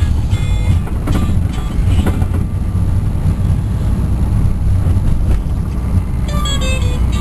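Steady low road and engine rumble inside a moving car's cabin, with music playing faintly, clearest near the end.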